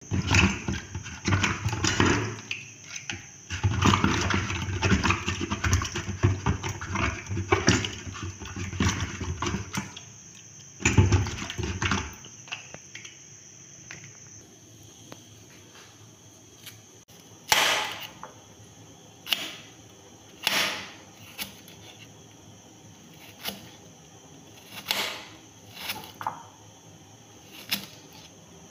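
Tap water running into a steel sink as an onion is rinsed, stopping about twelve seconds in. Later, a series of sharp knife strikes, one every second or two, as the onion is sliced.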